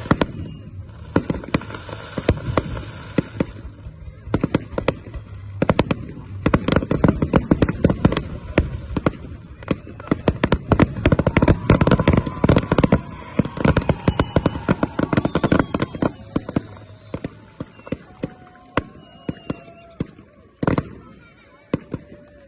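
Fireworks going off in rapid succession: a dense crackle of sharp bangs, thickest in the middle and thinning toward the end, with a few short whistling tones in the second half.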